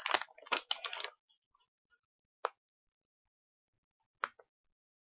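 A brief rustle in the first second, then two short, sharp clicks about two seconds apart in near quiet.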